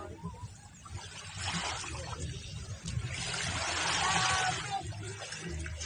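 Shallow seawater splashing and trickling as a person wades and handles a container in it. The sound swells about a second and a half in and again from about three to five seconds.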